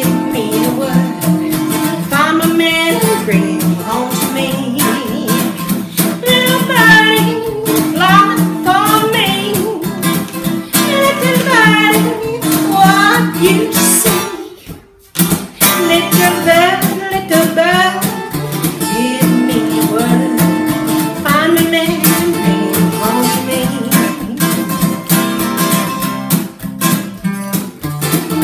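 Acoustic guitar strummed in a swing rhythm, with a voice singing over it at intervals. The sound drops out for a moment about halfway through.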